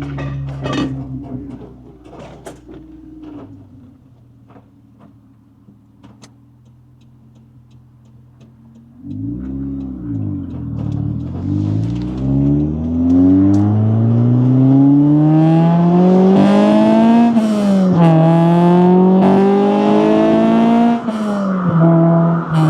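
Acura Integra's four-cylinder engine idling, then the car pulls away under hard acceleration. The engine note climbs steadily in pitch, drops sharply at an upshift about 17 seconds in, climbs again and drops at a second upshift near the end.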